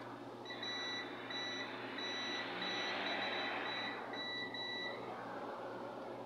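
Digital multimeter's continuity buzzer giving a string of short, uneven high beeps as the probes touch points on the repeater's circuit board; each beep signals an unbroken connection between the two points probed. The beeps stop about five seconds in.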